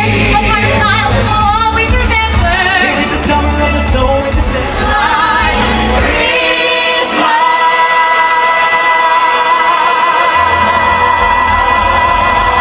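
Stage-show song with singers over a pop backing track, building to one long held sung note with vibrato from about seven seconds in; the bass drops out under the held note and comes back near the end.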